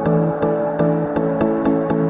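Electronic background music with a steady beat over held synth chords.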